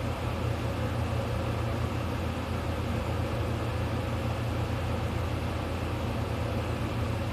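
Steady low hum of background room noise, even throughout, with no snore heard.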